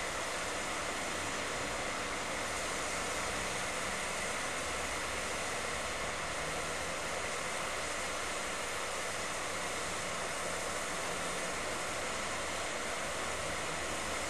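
Steady hiss of steam escaping from the standing steam locomotive Tornado 60163, an A1 Pacific.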